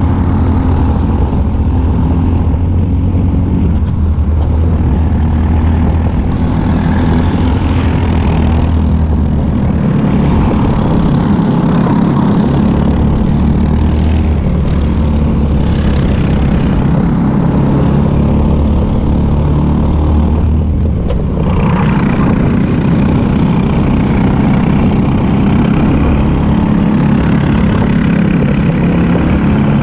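Racing kart engine running hard, heard from on board the kart, its note shifting up and down through the corners and dipping briefly about two-thirds of the way through.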